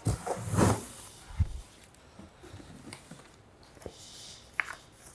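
Cardboard box being opened by hand: the lid flaps scrape and rustle for about the first second, then a dull thump. Faint rustling of the packing inside follows, with a small click near the end.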